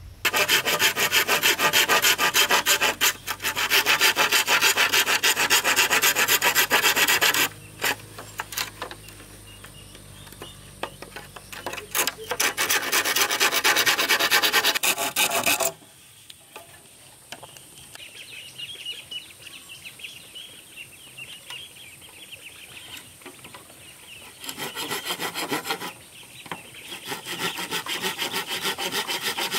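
A hand tool working wood with rapid rasping strokes, sawing or filing, in loud bouts that stop and start, with quieter scraping between them.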